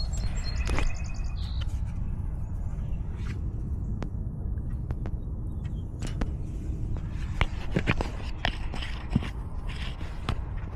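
A steady low rumble, with scattered short clicks and scrapes of handling, more of them in the second half.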